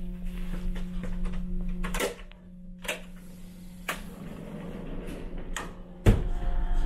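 Cabin door being unlatched and opened: several separate clicks of the lock and latch, then a heavier knock about six seconds in. A steady low hum runs underneath.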